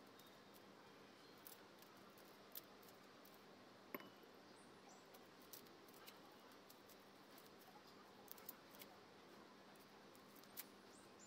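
Faint, irregular clicks and crackles of a small knife peeling the papery skins off garlic cloves, over a low steady hiss.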